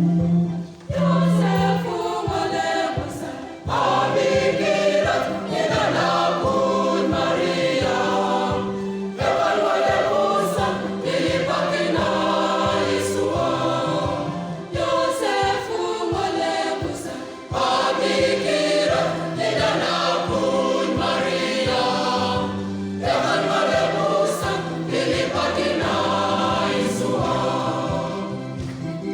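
Church choir singing a gospel song in phrases, many voices together over a steady beat and bass accompaniment.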